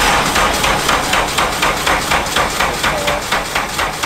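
Acura RSX engine being cranked by its starter on a weak battery, turning over slowly in an even, rapid chug of about five beats a second.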